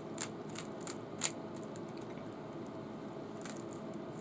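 Plastic Rubik's cube faces being turned by hand: four short clicks in the first second and a half, then a pause with only a low steady room hum.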